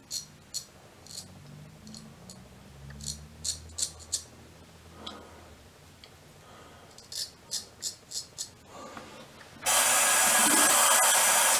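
Straight razor scraping through lathered stubble in a series of short, crisp strokes. About ten seconds in, a loud steady rush of tap water running into the sink starts and lasts about two seconds.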